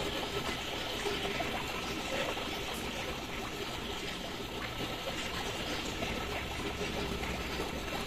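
Running water trickling steadily, with a few faint splashes.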